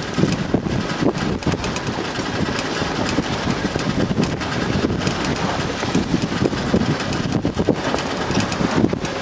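Strong wind buffeting the camera microphone aboard a small sailboat under sail, an irregular gusty rush loudest in the low end.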